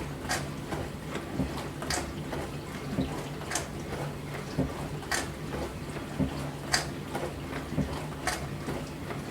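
Dishwasher running mid-cycle: a steady pump hum under water washing inside the tub, with a sharp splash of water striking about every second and a half in an even rhythm.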